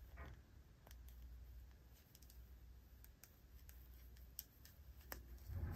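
Near silence with a few faint, scattered clicks and a soft low thump near the end: hands working a yarn tail into a crocheted hat with a tapestry needle.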